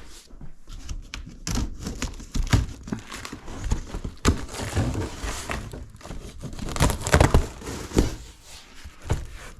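Cardboard box and packing material being torn open and handled: crinkling and tearing of wrapping with irregular knocks and scrapes, loudest about seven seconds in.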